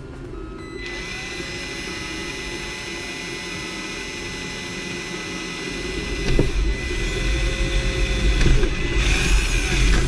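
Cordless impact driver with a small drill bit running, drilling a pilot hole through the plastic loader arm: a steady motor whine that starts about a second in and grows rougher and louder over the second half.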